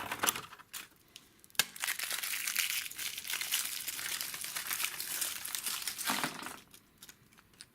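A surprise egg's wrapper crinkling as it is torn open, for about four seconds, after a single sharp click about a second and a half in.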